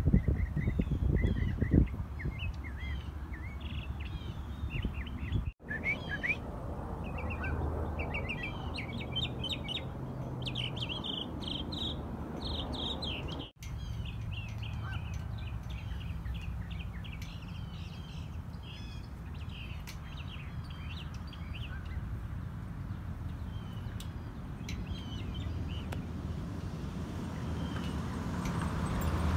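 Northern mockingbird singing a long run of quick, varied chirping phrases over a low rumble that is strongest in the first two seconds. The sound drops out briefly twice.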